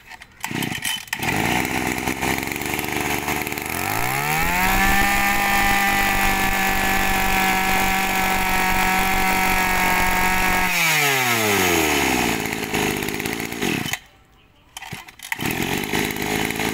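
Mitsubishi TL23 23cc two-stroke brush cutter engine running. It idles, is revved up about four seconds in and held at a steady high pitch for around six seconds, then drops back to idle and is switched off near the end.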